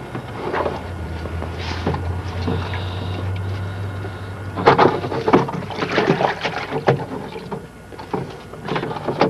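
Water splashing in a plastic barrel as a landing net is worked through it and netted fish thrash, with a burst of rapid splashes about halfway through and a few more near the end.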